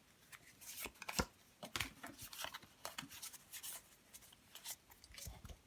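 Pokémon trading cards being handled and slid against each other, a run of soft irregular rustles and flicks.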